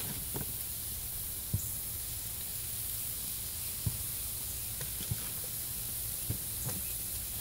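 Hamburger patties and bacon strips sizzling on a grill grate, a steady hiss, with a few faint light clicks.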